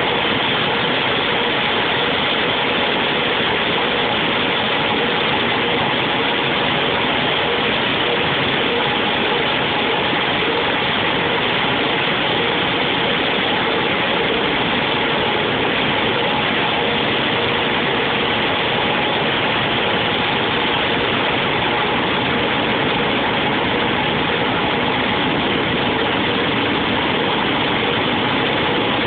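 Steady, loud machine noise with a few faint steady hum tones in it, no starts, stops or changes.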